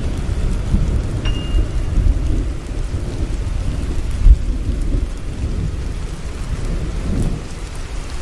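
Steady rain with a deep rumble of thunder underneath and a sharp low boom about four seconds in.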